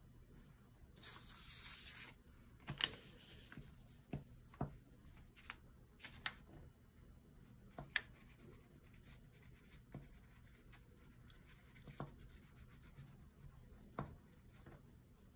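Oil pastel being rubbed across a kraft paper bag in short strokes, heard faintly with scattered small ticks and taps. About a second in there is a brief paper rustle.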